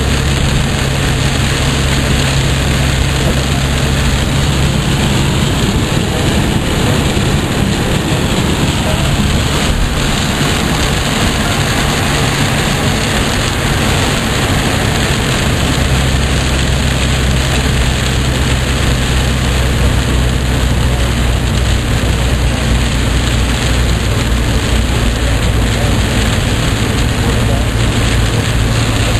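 Heavy rain hitting the car's roof and windshield and tyres hissing on the flooded highway, heard from inside the car. A low engine hum runs underneath and shifts pitch twice.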